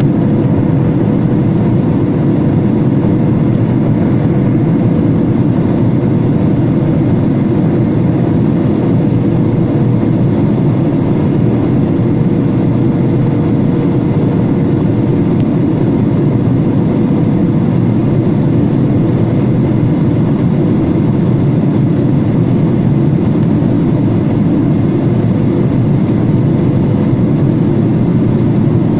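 Cabin noise inside a Boeing 737-800 in flight: the steady sound of its CFM56-7B turbofan engines and the airflow past the fuselage, with a steady hum running through it.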